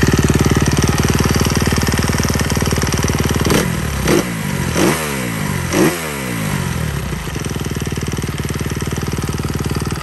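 A 2021 Kawasaki KX 250F's four-stroke single-cylinder engine running just after starting, idling with four quick throttle blips a few seconds in before settling back to a steady idle. Its mechanical knocking is, in the rider's view, normal for this high-output engine, with the valves and springs knocking more.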